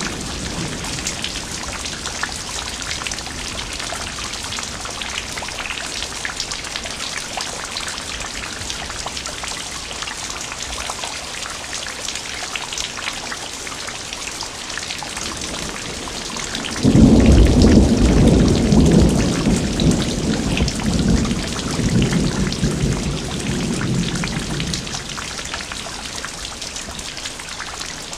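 Steady heavy rain with dense drop patter. About two-thirds of the way through, a clap of thunder breaks in suddenly and rumbles on in waves for several seconds before fading.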